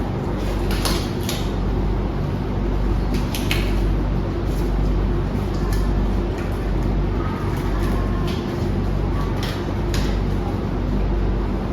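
Scattered light clicks and knocks of objects being handled and set down, over a steady low hum.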